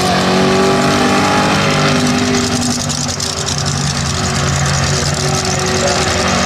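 Mega truck engine held at high revs at a nearly steady pitch, a sustained full-throttle pull.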